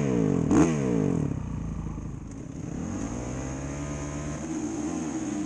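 Honda CRF450RX's single-cylinder four-stroke engine blipped sharply about half a second in, then falling back to a steady idle.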